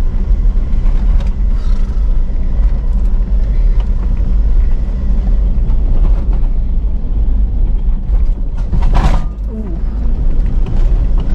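A four-wheel drive's engine runs with the rumble of tyres on a steep, rutty dirt track, heard from inside the cabin. The vehicle knocks now and then over the ruts, and a brief louder noise comes about nine seconds in.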